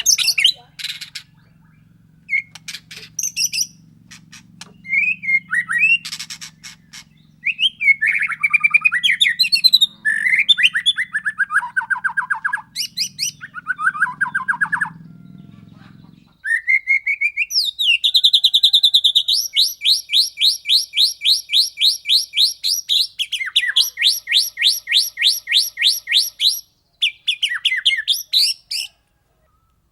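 White-rumped shama (murai batu) singing. It gives varied whistled and chattering phrases, then a long fast run of evenly repeated notes in the second half.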